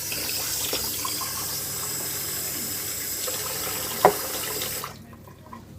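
Tap running steadily into a sink, turned off about five seconds in. A short knock, the loudest sound, comes just before it stops.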